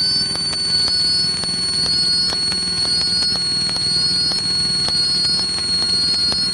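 Piper Cherokee's single piston engine droning steadily in cruise, with a steady high-pitched whine over it and a pair of short rising chirps about once a second.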